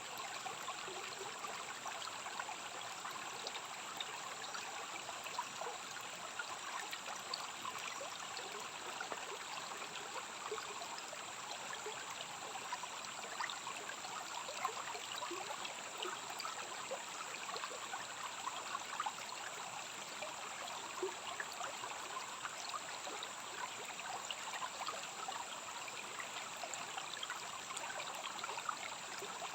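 Rainforest stream flowing: a steady rush of water with many small trickles and splashes, under a steady high-pitched hiss.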